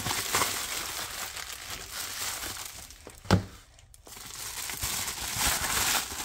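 Packaging being handled and opened: continuous crinkling and rustling, with one sharp knock a little past three seconds in and a brief lull just after it.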